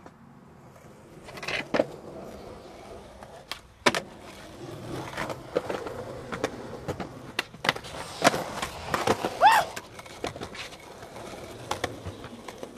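Skateboard wheels rolling on concrete, with repeated sharp clacks of the board hitting the ground as the skaters pop and land tricks.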